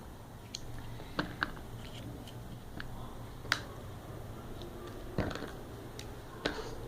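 A few scattered, sharp small clicks and taps from hands handling a Kinder Surprise egg and its plastic toy capsule.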